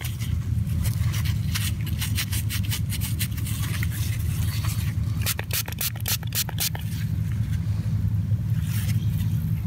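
Gloved thumb rubbing and scraping a wet, dirt-crusted Indian Head cent to clear its face, in runs of quick scratchy strokes about a second in and again past the middle, over a steady low rumble.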